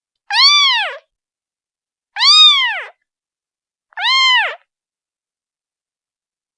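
Newborn kitten, a day old, meowing three times about two seconds apart, each cry rising then falling in pitch: a kitten calling for its mother.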